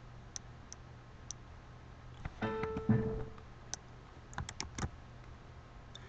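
Computer keyboard keys tapped a few times, sparse single clicks, with a brief pitched tone lasting about a second partway through.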